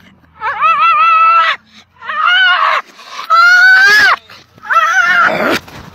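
A husky-type dog howling and yowling in four drawn-out calls, each with a wobbling, wavering pitch, separated by short pauses.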